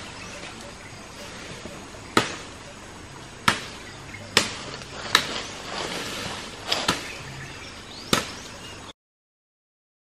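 Machete chopping into mango tree branches: about seven sharp, separate blade strikes at an irregular pace, two of them in quick succession.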